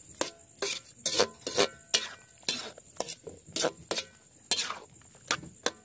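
A long metal utensil scraping and tossing a vegetable and seafood stir-fry in a metal wok, in short, irregular strokes about two a second.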